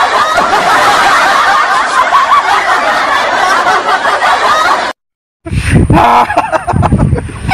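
Many people laughing and giggling at once, a dense, continuous laughter that cuts off abruptly about five seconds in. After half a second of silence comes a different recording with a low rumble and a voice.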